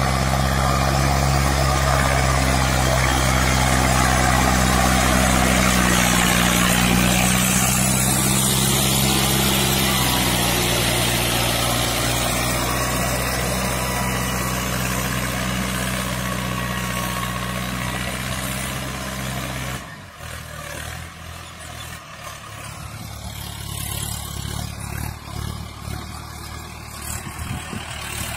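Mahindra Arjun Ultra-1 555 DI tractor's four-cylinder diesel engine running steadily under load while the tractor pulls a ridging implement through the soil. About twenty seconds in, the sound drops to a quieter, rougher engine sound with more noise and less of the steady tone.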